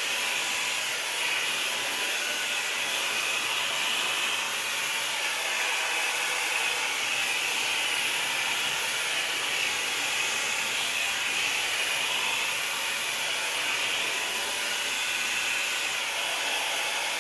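Revlon Plus blow dryer running steadily, an even rush of air with a hiss strongest in the upper middle, as it dries damp hair.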